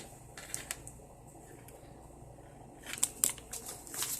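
A few light metallic clicks and clinks from the handbag's chain strap and hardware being handled, with a soft rustle of handling starting near the end.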